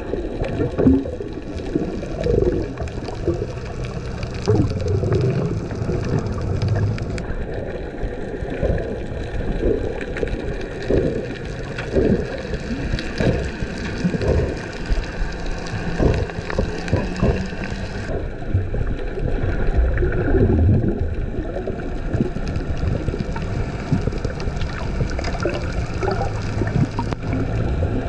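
Muffled water sloshing and gurgling picked up by a camera held underwater, rising and falling irregularly without a steady rhythm.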